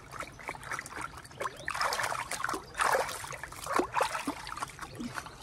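Hands splashing and scooping shallow river water over long hair to rinse it: irregular splashes and trickles, loudest about two to three seconds in.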